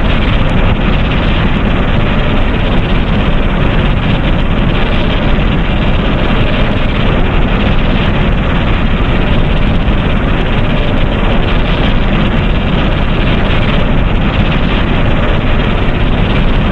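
Steady, loud rumbling noise with no pitch or rhythm, heaviest in the low end: a made-up monster sound effect.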